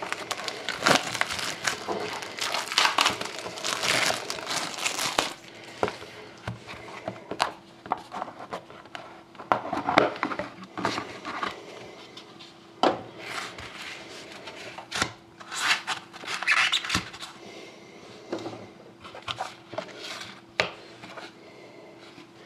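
Plastic wrapping crinkling and tearing as a box of trading cards is opened, dense for the first few seconds, then scattered rustles and clicks as the cards are handled. A faint steady hum runs underneath from about six seconds in.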